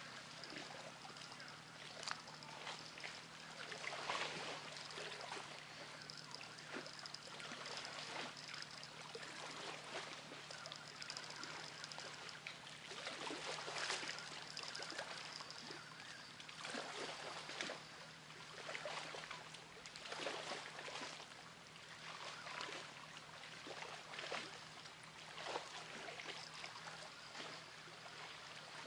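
River water trickling and lapping, with many small irregular splashes and a faint steady low hum underneath.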